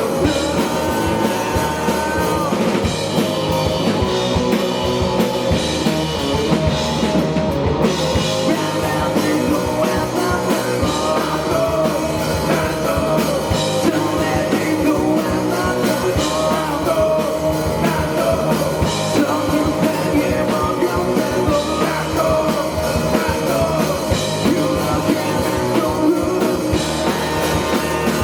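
Indie rock band playing live, with a singer over drum kit, bass and electric guitars.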